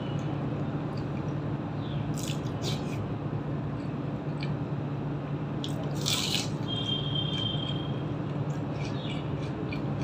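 Close-up eating with the hand: wet chewing and mouth sounds, with fingers squishing rice and curry on a steel plate, and a crisp bite into a fried pakoda about six seconds in, the loudest sound. A steady low hum runs underneath.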